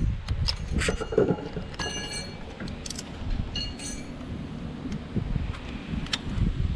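Tools and metal parts clinking while working on an engine, with a few sharp clicks and two ringing metallic clinks, about two and about four seconds in. Wind rumbles on the microphone underneath.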